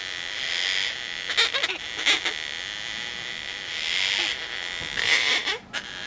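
Juvenile gang-gang cockatoos begging for food: a run of harsh, rasping calls, about five in six seconds, with a few sharp clicks among them.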